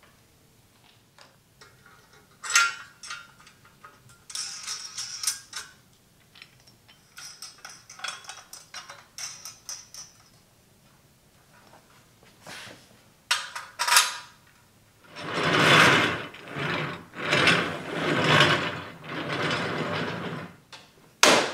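Hand work with wooden parts: scattered light knocks and clicks, then about four long rubbing swells of wood scraping along wood, ending with a sharp knock.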